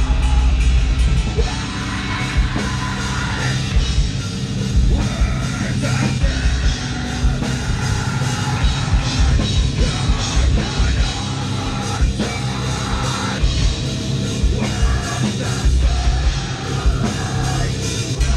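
Live heavy rock band playing loud: electric bass, electric guitar and a drum kit, with a vocalist yelling into the microphone.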